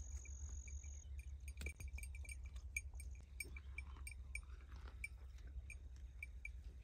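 A small neck bell on a grazing water buffalo clinking faintly and repeatedly, about three light chinks a second, as the animal moves its head while feeding. A low steady rumble runs underneath.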